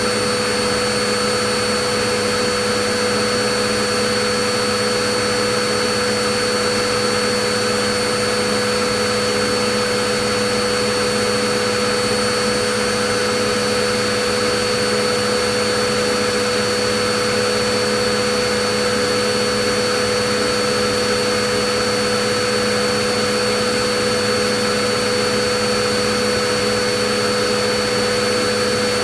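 Vacuum cleaner running steadily: a constant motor whine and the rush of air, with a few fixed tones on top.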